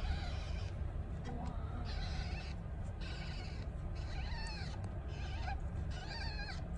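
Newborn kittens mewing: several thin, high-pitched cries that rise and fall, most of them in the second half, over a steady low rumble.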